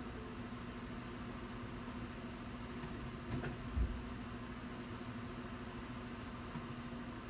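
A steady low hum, with a light click and a soft thump about halfway through.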